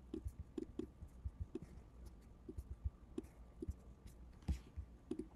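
Faint, irregular clicks of a computer mouse and keyboard, about a dozen scattered short taps.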